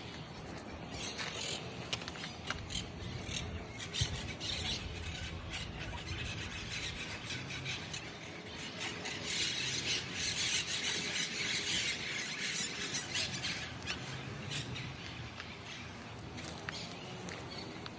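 Birds calling and chattering in a dense chorus, busiest about halfway through.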